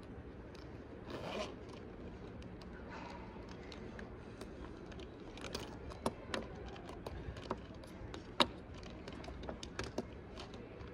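Zipper of a fabric pencil case being pulled open in short swishes, then pens and a highlighter being taken out and set down on a table in a series of light clicks and taps, the sharpest about three-quarters of the way through.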